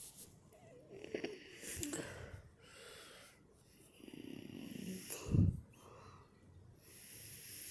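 Heavy, wheezy breathing close to the microphone, swelling a few seconds in and ending in a loud low thump of breath a little past five seconds in.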